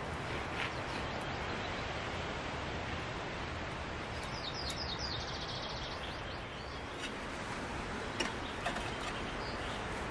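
Steady outdoor background hiss with a small bird singing one quick trill of short falling chirps about four seconds in. Two light knocks near the end.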